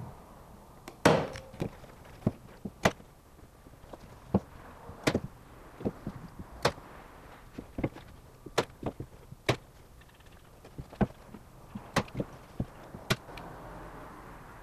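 Hand staple gun driving staples through canvas into wooden stretcher bars: a series of sharp snaps about one every second or two, some louder than others. Faint rustling of the canvas being pulled taut comes between them.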